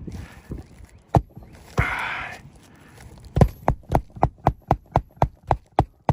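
A short scrape on the asphalt shingle roof, then a quick, even run of about a dozen sharp hammer taps, roughly four a second, as the roofer works at the shingles and their nails.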